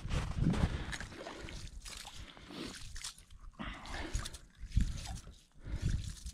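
A slotted metal ice skimmer scooping slush and ice chips out of a freshly drilled ice-fishing hole, with water sloshing and trickling off it.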